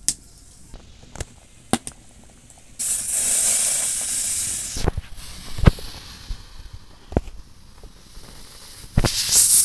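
Thin rice-and-palm batter poured onto a hot, oiled iron tawa hisses loudly for about two seconds, starting about three seconds in, then settles into a quieter sizzle. Sharp clicks of the metal ladle against the bowl and griddle come before and after. A second loud hiss comes near the end, while the griddle is lifted by its handles and swirled.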